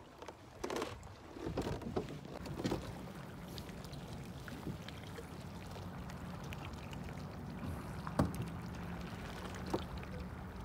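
Water sloshing against a kayak hull over a steady low hum, with a few light knocks about a second in, around two to three seconds, and near the end.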